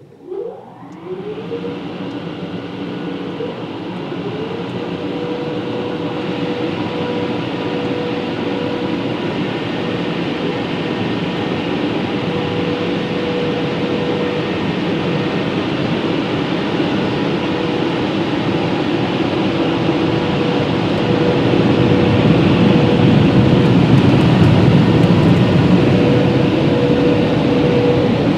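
Car wash dryer blowers starting with a quick rising whine, then running steadily with a loud rush of air and a steady hum, heard from inside the car. The rush grows gradually louder as the drying arch passes over.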